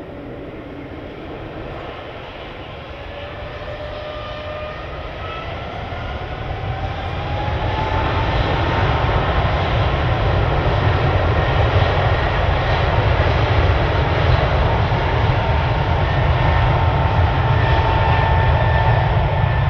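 A Boeing 777's twin turbofan engines spooling up to takeoff thrust: a whine that rises in pitch and grows louder over the first several seconds, then a loud, steady engine rumble with a high whine as the airliner accelerates down the runway.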